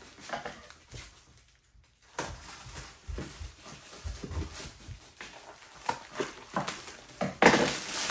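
Paper packing wrap crinkling and tearing as it is pulled off a bubble-wrapped box, in irregular rustles with a brief pause about a second and a half in and a louder rip about seven and a half seconds in.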